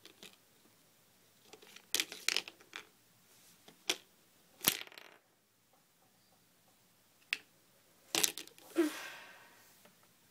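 A doll's plastic hand and a toy fork knocking and scraping against a plate and the small pastries on it: scattered sharp clicks and taps with quiet gaps between them.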